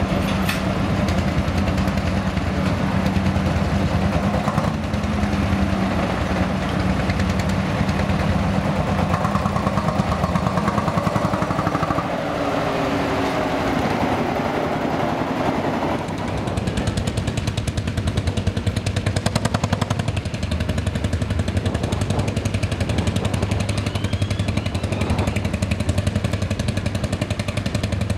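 Engine running steadily with a fast, even beat. Its low note drops partway through.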